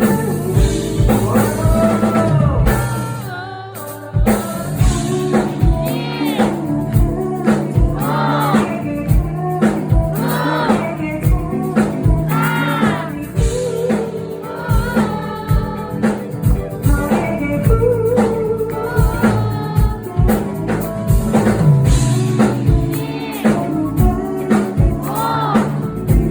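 A live band playing a song with a singer: sung melody over a drum kit keeping a steady beat. About three seconds in the band thins out briefly, then comes back in full.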